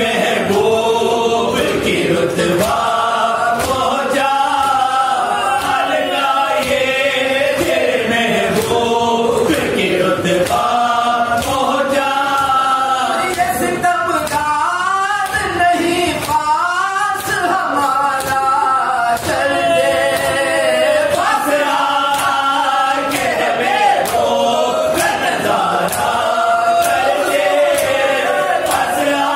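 Men's congregation chanting a marsiya, an Urdu elegy for Imam Husain, in unison behind lead reciters on microphones. It is a sung, wavering melody that carries on without a break. Sharp, evenly paced beats run through it, in keeping with hands striking chests in matam.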